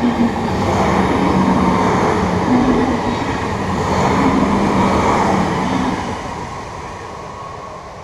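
NS DM '90 diesel multiple unit passing close by: steady diesel engine hum with wheels running on the rails. Loudest for about the first six seconds, then fading as the train moves away.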